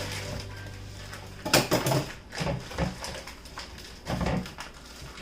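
Raw chicken being pulled out of its plastic package: a few irregular bursts of crinkling and rustling handling noise, the loudest about a second and a half in.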